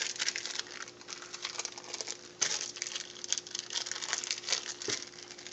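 Thin plastic wrapper crinkling and crackling in irregular bursts as it is peeled off a processed cheese slice by hand, over a faint steady hum.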